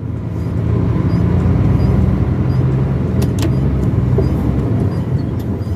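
Car driving along a highway: steady engine and road rumble, with a couple of brief clicks about three seconds in.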